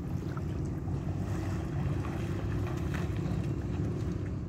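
Wind buffeting the microphone, a steady low rumble, with a few faint splashes from people wading in shallow water.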